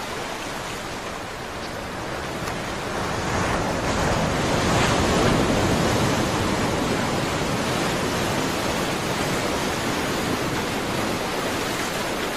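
Steady rushing noise of sea water and wind, getting louder about three seconds in.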